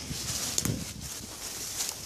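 Footsteps swishing through tall grass and weeds, stems and leaves brushing against legs, with a couple of sharper crackles about half a second in and near the end.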